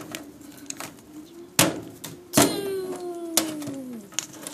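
Plastic wrestling action figures clacking and knocking together as they are slammed about by hand: several sharp knocks, the loudest about one and a half and two and a half seconds in, each followed by a long falling tone.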